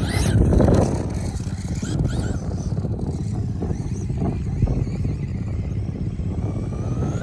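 Radio-controlled short-course truck driving hard across sand, over a steady low rumble, loudest in the first second.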